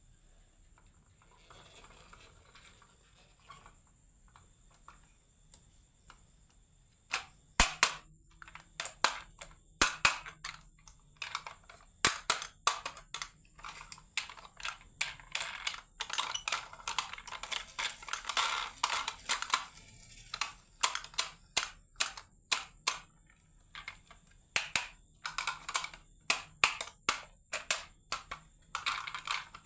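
Marbles clacking and rolling down a marble run: quiet at first, then from about seven seconds in a long stream of sharp, irregular clicks and knocks, with rattling in between.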